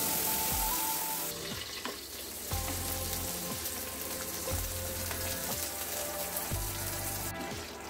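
Wet masala paste sizzling in hot oil in an aluminium kadai, loudest for the first second or so as it goes into the pan, then settling into a steady frying sizzle as it cooks over medium heat. Background music with a repeating bass note plays under it.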